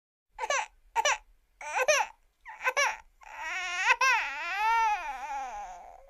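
Cartoon crying sound effect: a high child's voice gives four short sobs, then a long wailing cry that rises and falls in pitch and trails off near the end.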